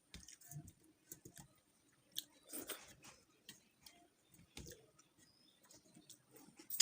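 A person chewing food close to the microphone, with irregular small wet mouth clicks and smacks, and a sharper click near the end.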